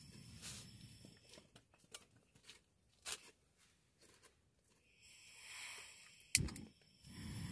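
Handling of camp cooking gear and packaging: scattered light taps and rustling, a short hiss, and one sharp click near the end.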